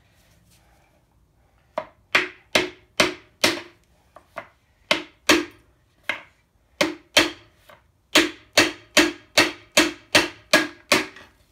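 Hammer blows, about twenty at two to three a second with a short pause partway through, each with a brief metallic ring, driving a piston and connecting rod out of the cylinder bore of a Ford 7.3 IDI diesel engine block.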